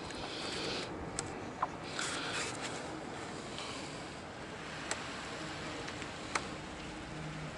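Hands handling small parts while taking a voltage display out of a motorcycle's dash panel: light rustling, a few sharp small clicks and one short metallic ping.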